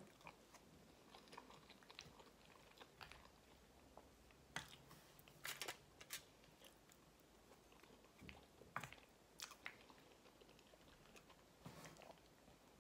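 Faint close-up chewing of a mouthful of macaroni and cheese, with a few short, sharp clicks scattered through.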